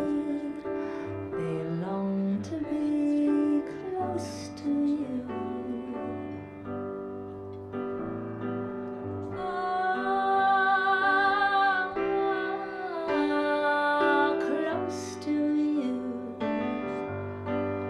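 A woman singing a slow ballad to her own piano accompaniment, with a long wavering held note about halfway through.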